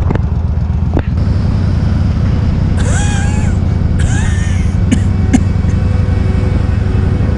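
Loud, steady low rumble of a motorcycle on the move: wind on the rider's microphone over the engine, with a few sharp clicks.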